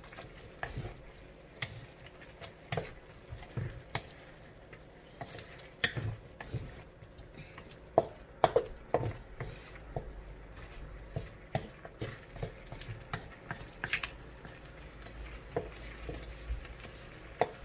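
A cooking utensil stirring pork ribs and seasonings in a pot, with irregular clinks and knocks against the pot's side, a little louder about halfway through.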